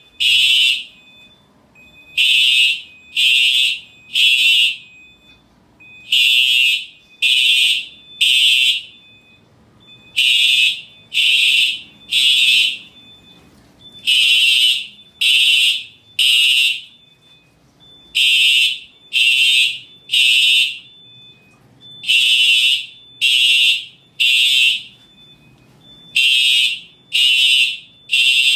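Fire alarm sounding the temporal-3 evacuation signal: three short blasts, a pause, then three more, each group starting about every four seconds.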